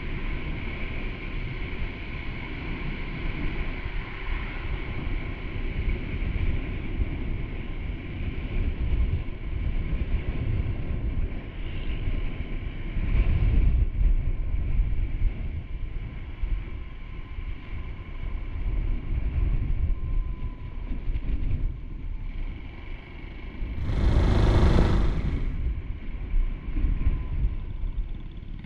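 Honda Super Cub C125's air-cooled single-cylinder engine running on the move, with wind rumbling on the microphone. A louder rush of noise lasts about a second and a half near the end.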